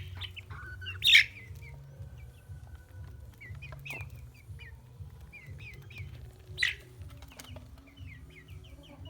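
A flock of free-range chickens calling: many short, high chirps throughout, with two loud, sharp calls about a second in and again near two-thirds through, over a steady low rumble.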